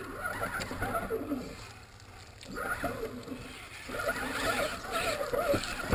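Electric motor and drivetrain of an RC rock-crawler truck whining in three bursts as the truck drives through shallow creek water. The pitch wavers with throttle and load, over water splashing around the tyres.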